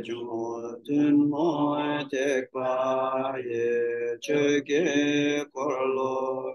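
A man chanting a Buddhist liturgy solo in a melodic voice, in held phrases with short breaks between them.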